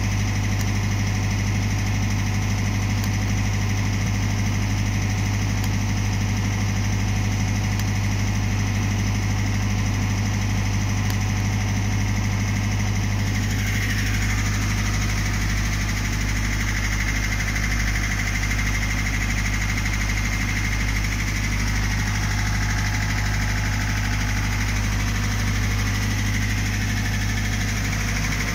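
Harrington generator's engine running steadily at about 1500 rpm, the governed speed for 50 Hz output, with a strong, even low hum. A faint high-pitched whine comes in about halfway through.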